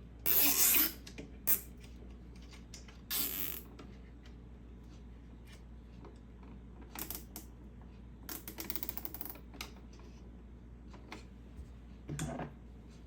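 Zip ties on a coffee maker's water-line valve being pulled tight, giving short rasping zips and fast ratcheting ticks, with scattered clicks and knocks of plastic parts being handled. The loudest zips come in the first second.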